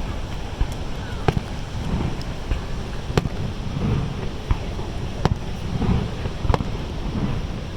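Fireworks bursting: several sharp bangs at irregular intervals a second or two apart, over a steady low rumble.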